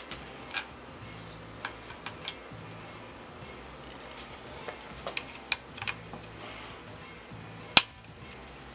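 Quiet background music with scattered sharp metal clicks and taps of hand tools working on a BMX bike's brakes, the loudest a single knock near the end.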